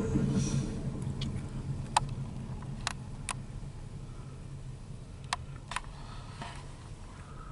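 Empty coal train's hopper cars rolling past and fading away, the low rumble of the wheels dying down steadily, with a few sharp clicks along the way.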